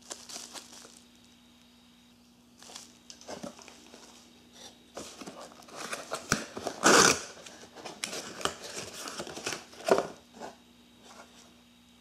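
Bubble wrap and plastic packaging crinkling and rustling in the hands as parts are unwrapped, in irregular bursts, loudest about seven seconds in.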